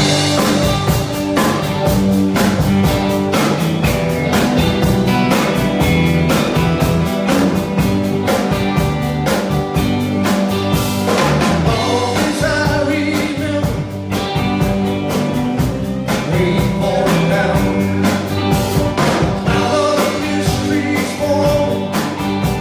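Live rock band playing loud: electric guitar, bass and acoustic guitar over a drum kit keeping a steady beat, with the full band coming in at the start.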